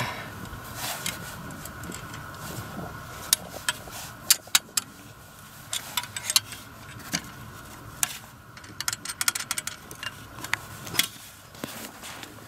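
Metal spanners clicking and clinking against the bolt and joint of a Nero ice auger as the bolt holding its upper and lower parts is undone: irregular sharp metallic clicks, in a cluster a few seconds in and another around nine seconds in.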